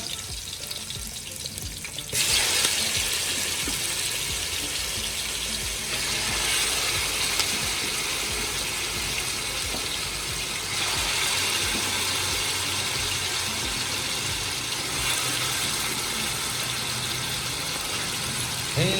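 Meat sizzling in hot oil in a cooking pot for biryani: a steady hiss that jumps up sharply about two seconds in as the meat goes in, then shifts slightly a couple of times as it fries.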